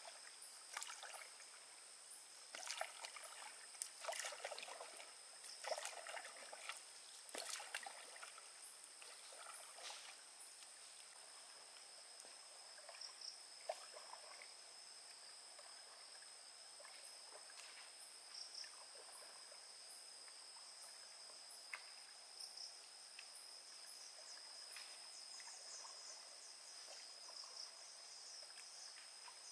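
Water splashing and dripping as a wet cast net is hauled out of a lake hand over hand, busiest in the first ten seconds and fainter after. A steady high-pitched insect drone runs underneath.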